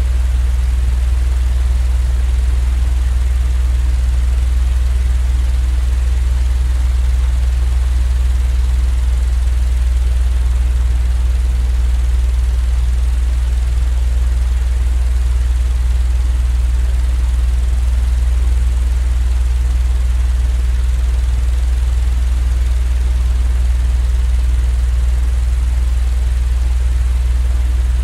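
Steady, unchanging low droning hum with an even hiss above it: a continuous machine drone used as sleep white noise.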